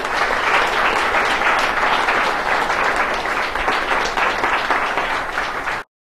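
Audience applauding: many people clapping at once, which cuts off suddenly near the end.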